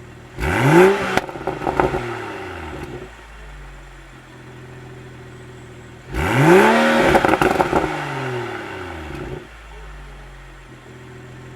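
BMW Z4 M40i's turbocharged 3.0-litre inline-six exhaust, idling and blipped twice: each rev climbs quickly and falls back to idle over two to three seconds, with crackles and pops on the way down.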